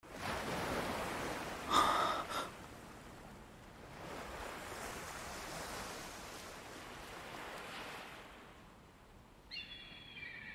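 Sea waves washing up over a sandy shore, swelling and fading. There is a short, high, pitched cry about two seconds in, and seagulls call near the end.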